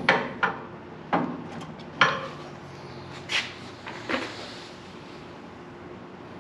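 A series of sharp metal clanks and knocks, about six in the first four seconds, then quieter. It is metal parts and tools of the sawmill head being handled, with a low steady hum underneath.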